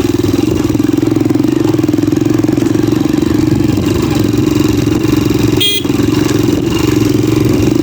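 Motorcycle engine running steadily under load while climbing a steep dirt track, with a brief sharp knock near the end.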